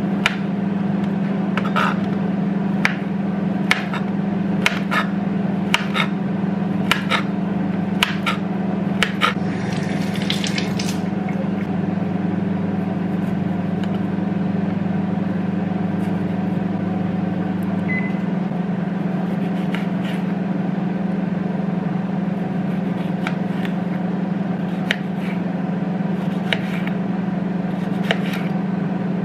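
Kitchen knife cutting through banana and then strawberries onto a plastic cutting board, a sharp tap about once a second for the first nine seconds and a few more near the end. A steady low appliance hum runs underneath, and its deepest part drops out about halfway through.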